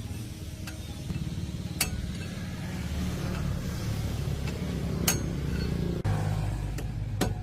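A few sharp metal clinks, like tools striking metal, over a steady low engine drone. The drone shifts a little about six seconds in.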